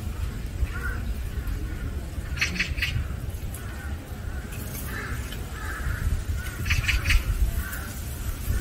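Bird calls: short calls in quick runs of three, about two and a half seconds in and again about seven seconds in, with a few fainter calls between, over a steady low rumble.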